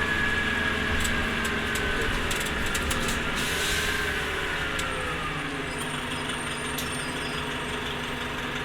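Orion V diesel transit bus running, its drivetrain whine gliding down in pitch as it slows. A short air hiss comes about three and a half seconds in.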